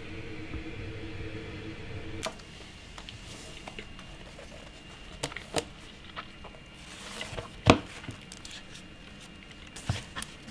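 Desk handling sounds: a few scattered sharp clicks and taps as a pocket notebook is picked up and handled, the sharpest about three quarters of the way through. A low steady hum runs under the first two seconds.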